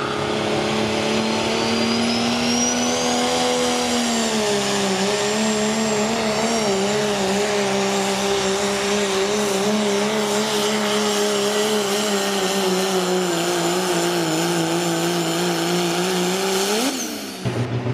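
Diesel pickup pulling a sled at full throttle, its engine held at high revs with a thin turbo whistle rising in the first few seconds. The engine note sags a little about four seconds in as the sled loads up, wavers under the strain, then cuts off suddenly near the end as the pull finishes.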